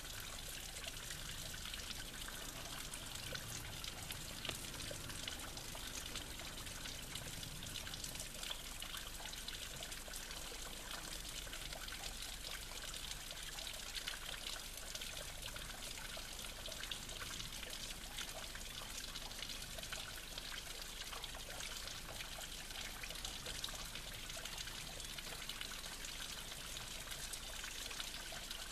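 Water trickling and pouring steadily, a small flow running and splashing over wet stone.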